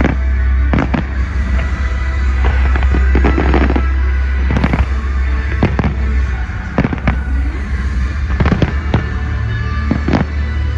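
Fireworks display: shells bursting in a string of sharp bangs, roughly one a second, over music playing.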